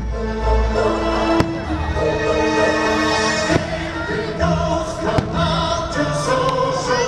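Fireworks show music with choir-like singing, punctuated by a few sharp firework bangs.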